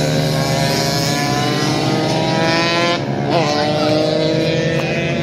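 Motorcycle engine accelerating, its pitch rising steadily for about three seconds, then a second quick rising rev just after.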